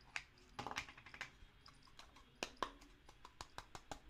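A plastic Play-Doh tub being pried open by hand: a run of light, irregular plastic clicks and snaps from the lid and tub, thickest about half a second to a second in.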